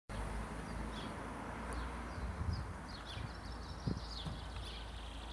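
Small birds chirping and singing in the background, many short quick notes, over a steady low rumble, with a soft thump about four seconds in.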